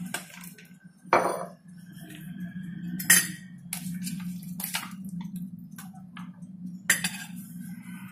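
Dishes and a disposable aluminium foil tray being handled on a kitchen table: a few sharp clinks and clatters, the loudest about a second in and another about three seconds in, over a steady low hum.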